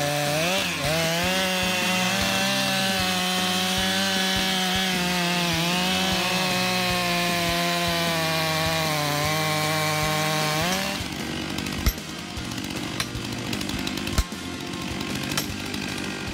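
Two-stroke chainsaw held at full throttle while cutting wood, its high engine note sagging briefly now and then as the chain bites. About eleven seconds in, the engine note drops away, leaving quieter noise with a few sharp knocks.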